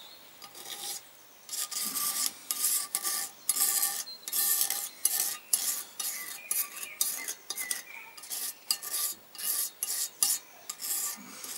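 Hand rubbing and wiping around the top of a Kawasaki 500 parallel-twin cylinder block's bore in a run of short, irregular strokes, starting about a second and a half in. The bore is being lightly oiled before it is measured.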